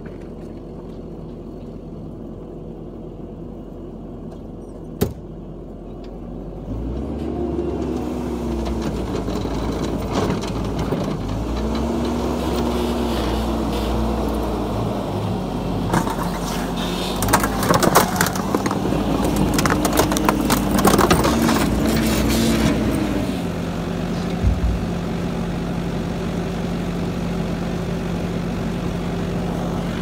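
A Bobcat's engine idling, with one sharp knock about five seconds in. It then revs up and down repeatedly under work. In the middle comes a burst of sharp crunches and cracks as a microwave oven is smashed and crushed. The engine settles back to a steady idle for the last few seconds.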